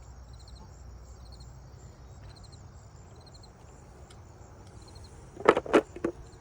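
Insects chirping in short, regularly repeated high trills over a low steady outdoor rumble. Near the end come three loud, short sounds in quick succession.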